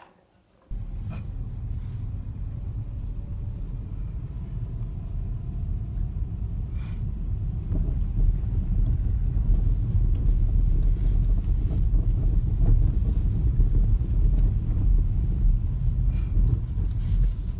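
Car on the move, heard from inside: a steady low road-and-engine rumble that starts abruptly about a second in and grows louder about halfway through.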